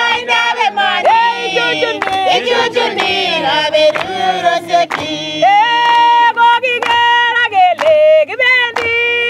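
A woman singing unaccompanied, her voice gliding between long held notes, over sharp hand claps.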